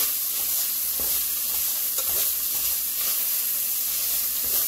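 Ground beef sizzling steadily as it browns in a nonstick pot, stirred and scraped around the pan with a plastic spatula.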